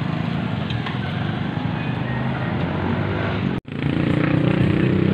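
Small motorcycle engine running steadily under the rider, with street noise. A split-second break in the sound about three and a half seconds in, after which the engine is louder.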